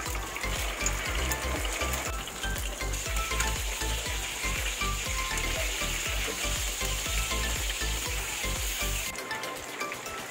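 Chicken pieces searing in hot oil in a frying pan: a steady sizzle that cuts off sharply near the end.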